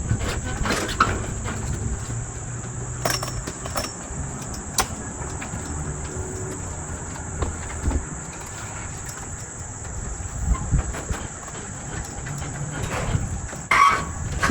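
Steady high insect chirring, with a low rumble and several sharp knocks and clanks scattered through, the loudest near the end.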